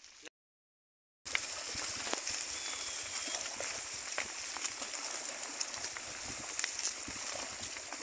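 Herd of pigs rooting and chewing through wet water hyacinth and mud, heard as a dense wet rustle full of small clicks, starting about a second in after a brief silence.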